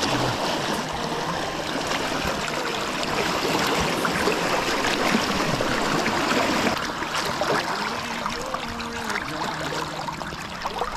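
Shallow, fast river water rushing and splashing close by, steady throughout and easing slightly after about seven seconds.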